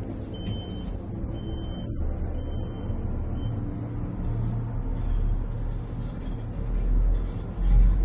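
Low rumble inside a gondola cabin descending on its cable, with a faint high whistle on and off in the first few seconds and the rumble growing louder near the end.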